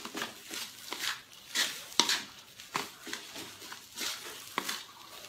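Wooden spatula scraping and turning fried rice in a metal wok over the heat: irregular scraping strokes, roughly one or two a second, over a faint frying sizzle.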